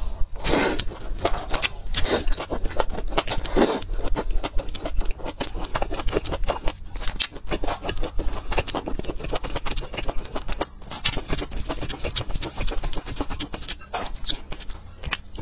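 Close-miked eating of broth-soaked meat: three loud wet slurps in the first four seconds, then steady moist chewing with rapid crackling, smacking clicks.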